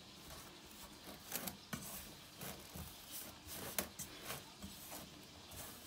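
Fingers rubbing and squeezing a crumbly flour and cottage-cheese mixture in an enamel bowl, making soft irregular scratchy rubs about twice a second. This is the dough being worked by hand before it comes together into a ball.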